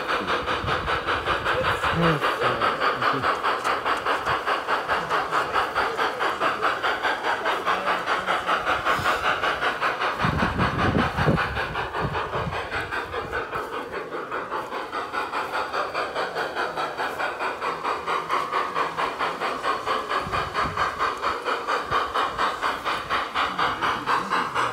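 G-scale model steam locomotive's sound system chuffing steadily with a hiss, about four chuffs a second, as the train runs. A brief low rumble about ten seconds in.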